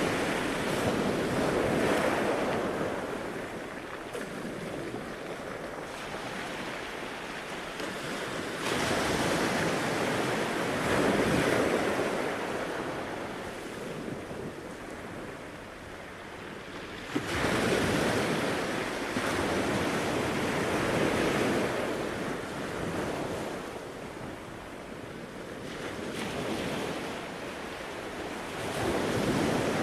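Gulf surf breaking and washing up a sandy beach, swelling and fading every several seconds, with wind buffeting the microphone.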